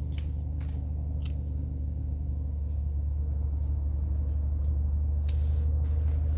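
Engine running steadily with a low hum, slightly louder in the second half, as limbs are mulched. A few short sharp snaps are heard over it, the loudest about five seconds in.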